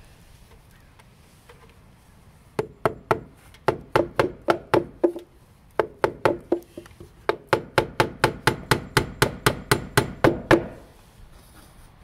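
Hammer blows driving fasteners into the wooden rafter blocking: quick runs of sharp, ringing strikes at about three to four a second, in three groups with short pauses between them.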